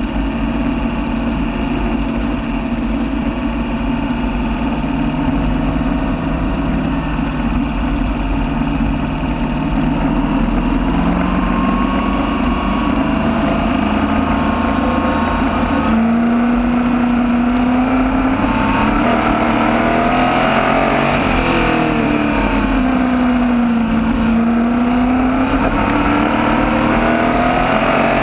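Small open-wheel race car's engine running hard at racing speed, its pitch rising and falling as it revs up and backs off.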